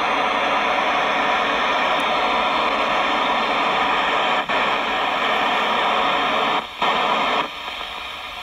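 Steady hiss of receiver noise from the speaker of an Icom IC-3200A dual-band FM transceiver as its tuning knob steps through frequencies around 442 MHz. The hiss dips briefly about halfway through, cuts out for a moment at about two-thirds, and goes on quieter near the end.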